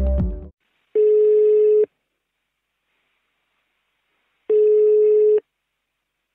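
Electronic music cuts off, then a video call's outgoing ringing tone: a steady beep about a second long, sounding twice about three and a half seconds apart, as the call rings a participant who has not yet joined.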